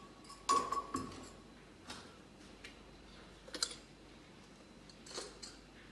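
Stainless steel kitchenware being handled: a few light clinks and taps, the loudest about three and a half seconds in, as a round steel spice box is moved about. One clink about half a second in rings briefly.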